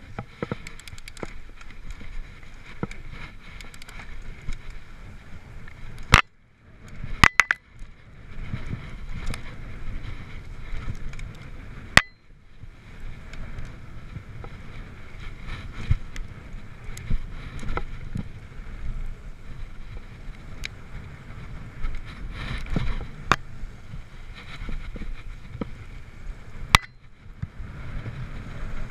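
Mountain bike rolling fast down a gravel trail: tyre noise and the rattle of the bike over the rough surface. Several sharp clacks cut through, about six, seven, twelve and twenty-seven seconds in.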